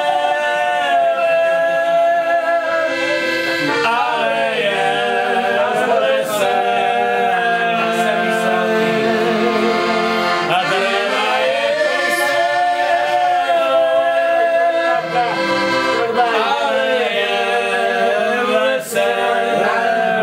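Two men singing together to an accordion's accompaniment, with short breaks between sung phrases.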